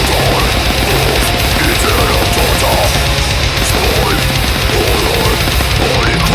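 Loud, heavy, aggressive rock music, like heavy metal.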